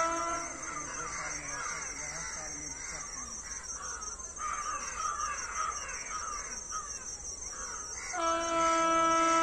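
A train horn's long steady blast cuts off about half a second in, and a second long blast starts about eight seconds in. Between the blasts, a flock of birds calls and caws.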